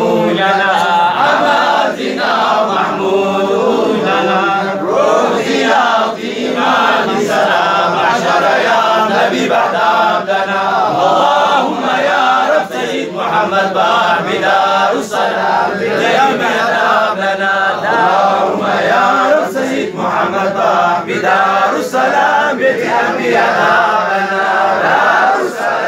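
Group of men chanting a Harari zikri (Islamic devotional menzuma) together, many voices overlapping in a continuous chant.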